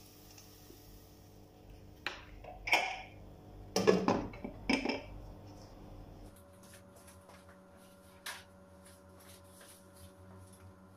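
A glass pan lid with a metal rim clanking as it is set onto a nonstick frying pan: a handful of knocks with a short ring, the loudest about four seconds in. Afterwards only faint ticks and one small click.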